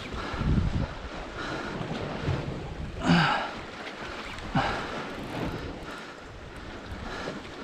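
Wind buffeting the microphone over the sound of sea waves washing against the shore, with two short louder bursts about three and four and a half seconds in.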